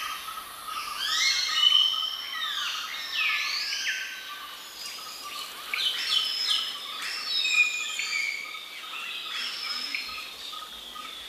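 Several forest birds singing together, with overlapping whistled phrases that sweep up and down in pitch. A steady high drone runs underneath.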